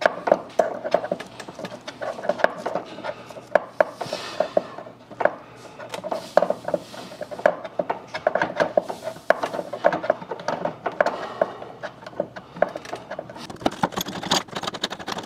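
Irregular run of clicks, knocks and rubbing from hand work on the screws that fasten an over-the-range microwave to the cabinet bottom.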